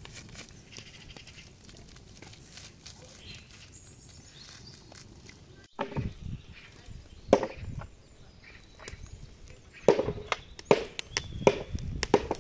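Irregular knocks and clinks from handling the wire grill baskets over the charcoal. The first half is quiet, with only faint clicks; the knocks start about halfway through, after a sudden break, and come louder and more often toward the end.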